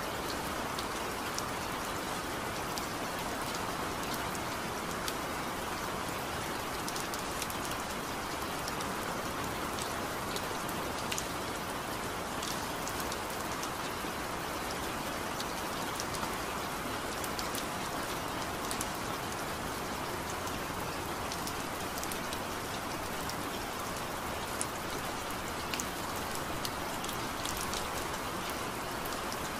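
Steady rain falling, with frequent sharp ticks of individual drops striking close by.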